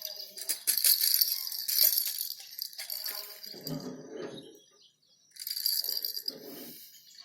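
Rattling and jingling from something being shaken, coming in bursts and stopping briefly around the middle, with a couple of short lower sounds in between.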